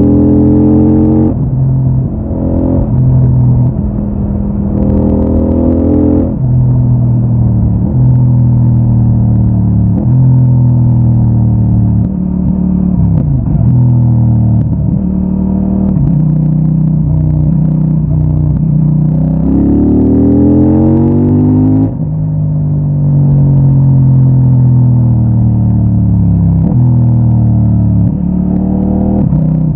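CFMOTO 800NK Advanced's parallel-twin engine on its stock exhaust, pulling through the gears. The pitch climbs and drops back at each upshift, several times, with a hard rising pull about two-thirds of the way through.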